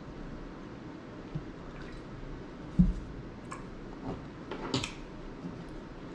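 Milk pouring into a glass, then a plastic milk bottle set down on a wooden table with a thump nearly three seconds in, followed by a few small clicks and taps as cake is handled on a wooden board.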